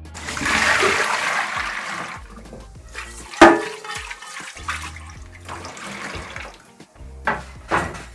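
Water splashing as plantains are washed by hand, loudest for the first couple of seconds. A sharp knock about three seconds in, with a few lighter knocks near the end.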